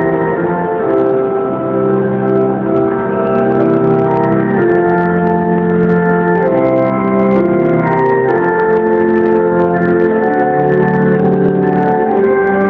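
Organ playing slow, held chords, with the bass note moving every second or two.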